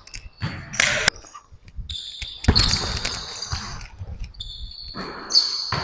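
Basketball play on a hardwood gym floor: the ball bouncing with a few sharp thuds, and sneakers squeaking in high, drawn-out squeals about two and a half and five seconds in.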